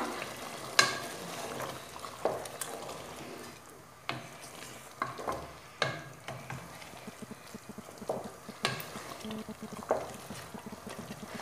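Wooden spoon stirring chunks of veal through thick tomato sauce in a pot, with soft sizzling from the sauce on the heat. The spoon knocks against the pot now and then, sharp short clicks a second or two apart.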